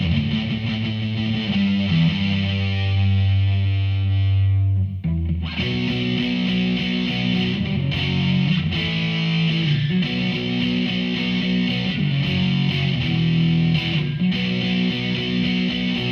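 Distorted electric guitar played through a Behringer V-Amp Pro amp-modelling processor. A low chord is held and rings for a couple of seconds, is cut off about five seconds in, and is followed by a riff of short chords repeated in a steady pattern.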